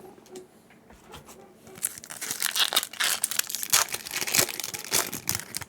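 Foil wrapper of a Yu-Gi-Oh booster pack being torn open and crinkled: a dense run of sharp crackling that starts about two seconds in and continues until near the end.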